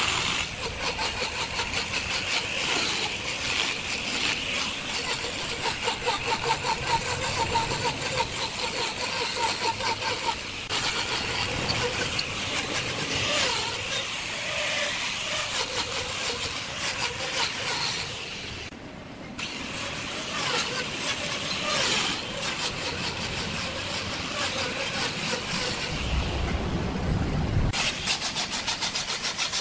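Hand-held electric angle grinders with carving and sanding discs running against wood: a steady motor whine with a grinding rasp. The sound shifts several times and dips briefly about two-thirds of the way through.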